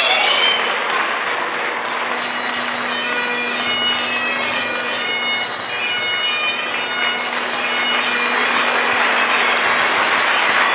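Bagpipes playing: a steady drone, with the chanter's melody of held notes coming in about two seconds in.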